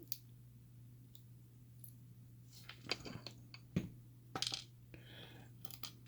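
Small metal lock parts clicking and clinking: springs and pins being picked out of a pin-tumbler lock cylinder with tweezers and set down, in a handful of scattered clicks, most of them in the second half.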